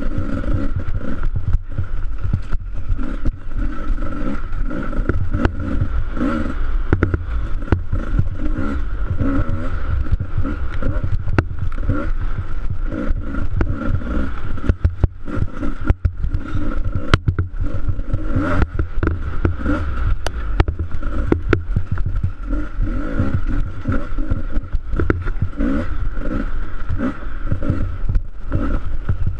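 Dirt bike engine running hard and revving up and down while riding a bumpy snow trail, with frequent short knocks and rattles from the bike over the ruts.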